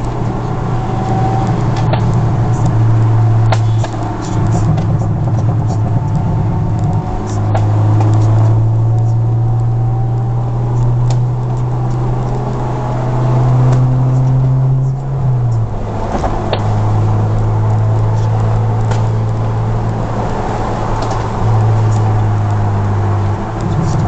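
Honda Accord Euro R's K20A four-cylinder engine through a J's Racing aftermarket exhaust, heard from inside the cabin while driving: a steady low drone that swells and eases in stretches, dipping briefly in pitch about two-thirds of the way through.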